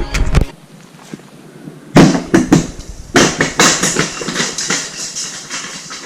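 Footsteps crunching on a loose gravel and rock trail, starting about two seconds in as irregular steps, loudest at first and then gradually softer.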